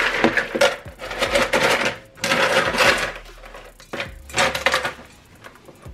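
Ice cubes clattering and grinding in a plastic bowl as a stainless steel mixing bowl is set down and pressed into them, in three bursts of rattling.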